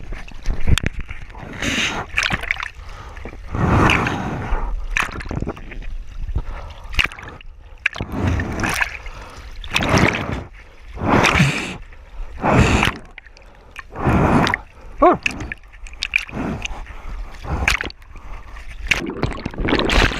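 Water splashing and sloshing in irregular surges every second or two.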